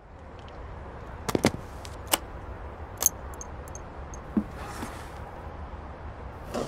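Metal latches of a hard guitar case being snapped open: several sharp clicks in the first three seconds, then smaller ticks and a soft knock, over a low steady background rumble.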